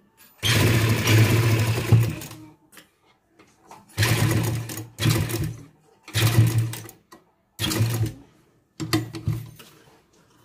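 Sewing machine stitching lace trim onto a fabric edge, run in short start-stop bursts: one run of about two seconds, then about five shorter runs of under a second each, with pauses between them as the fabric is guided.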